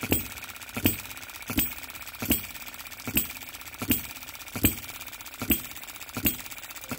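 Retrol OKMO B01 model hit-and-miss engine, a 3.6 cc water-cooled single-cylinder four-stroke petrol engine copied from the Baker Ball Top Monitor, running freshly started. It fires with a sharp pop about every three-quarters of a second, with light mechanical ticking in between.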